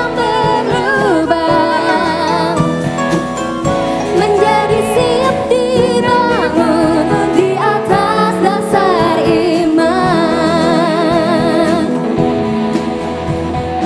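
Live band with drum kit, bass and acoustic guitar backing female singers in a worship song, singing held, wavering notes.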